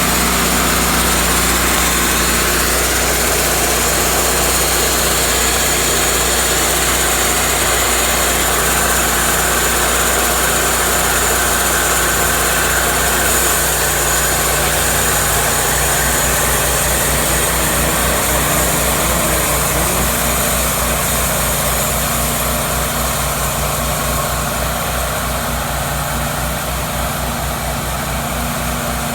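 A sawmill's engine running steadily at idle. From about halfway a low, fast pulsing comes in, and the sound grows slightly quieter near the end.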